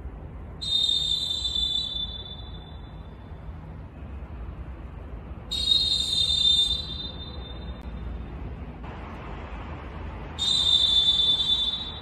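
Three long blasts on Molten pealess referee whistles, a Dolfin F, a Valkeen and a Dolfin Pro in turn, about five seconds apart. Each is a steady high tone lasting about a second and a half, with an echoing tail.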